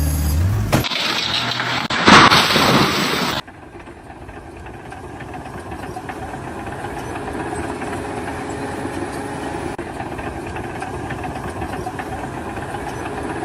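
A loud rushing noise for about a second and a half, then an engine running steadily and slowly growing louder.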